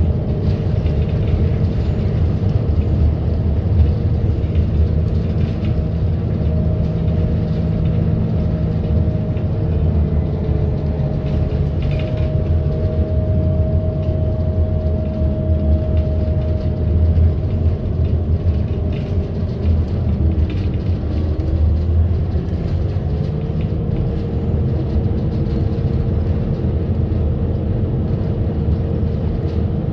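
Bus riding along: a steady low engine and road rumble, with a faint whine above it that dips and rises once about two-thirds of the way through.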